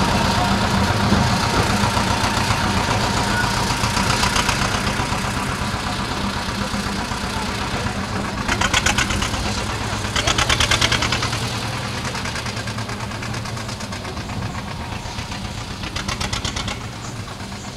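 Small narrow-gauge diesel locomotive engine running at a low, steady idle, slowly growing quieter. Two short bursts of rapid rattling come near the middle, and a smaller one near the end.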